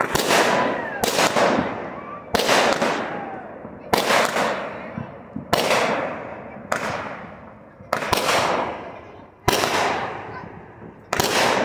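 Fireworks bursting in the air one after another, about nine sharp bangs, one every second or so. Each bang trails off over about a second before the next.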